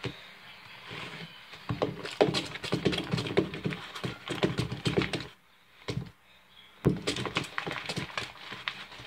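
Slime mixture of glue, shaving cream and laundry detergent being stirred in a container, heard as quick irregular clicks and scrapes. The stirring stops for about a second and a half a little past the middle, then carries on.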